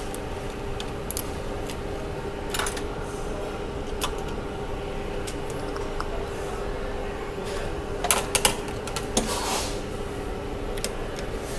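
Small clicks, taps and a brief rustle of tools and parts as an iPhone X is reassembled, most of them in a cluster past the middle, over a steady background hum.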